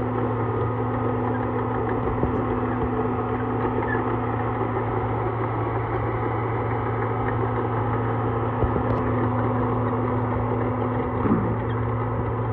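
Diesel engine idling steadily with a constant low hum, with a brief faint sound near the end.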